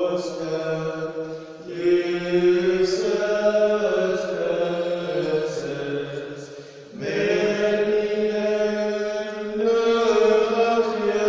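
Slow liturgical chant sung by voices, held notes that step from pitch to pitch, with brief breaths between phrases about two seconds and seven seconds in.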